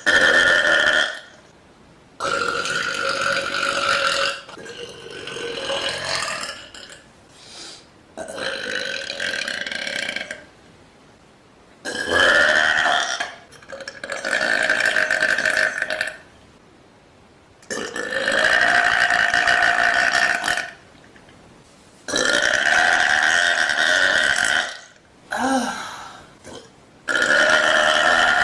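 A young woman burping loudly, a string of about ten long, drawn-out belches, each lasting one to three seconds, with short pauses between.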